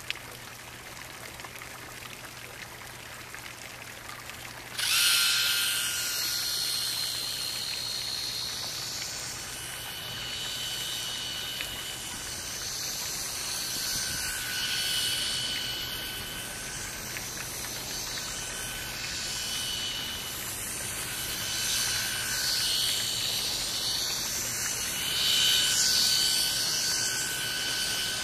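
Steady trickle of water, then about five seconds in a micro RC model boat's small electric motor starts with a high whine. The whine runs on, swelling and fading several times as the boat moves near and away across the water.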